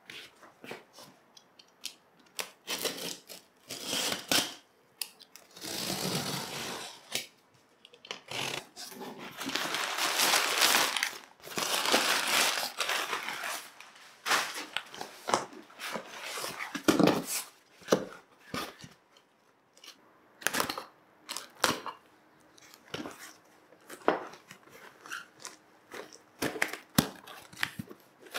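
Hands handling an anthurium and its potting materials: irregular rustling, crinkling and scraping, with scattered sharp clicks.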